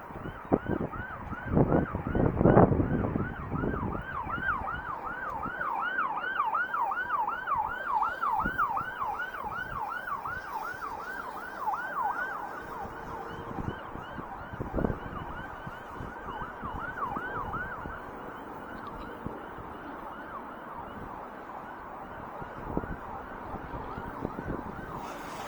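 Emergency-vehicle siren in a fast yelp, its pitch sweeping up and down about three times a second, from about five seconds in until past the middle. Wind buffets the microphone in the first few seconds.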